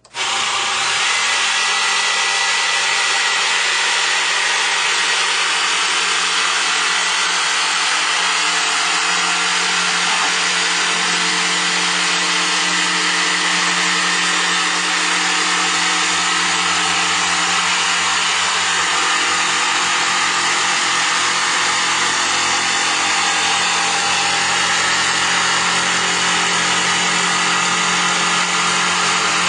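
Electric jigsaw switched on and cutting through a wooden board, its blade running at a steady, even speed throughout the cut.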